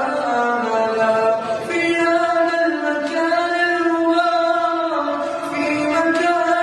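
A boy's voice chanting an Arabic supplication (du'a) in a slow, melodic prayer style, drawing the syllables out and holding one long note through the middle.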